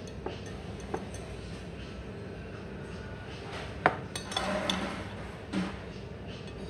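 Metal knife and fork on a ceramic plate: a few light clinks, then a sharp clink about four seconds in as the knife meets the plate, followed by a second or so of the knife scraping across it.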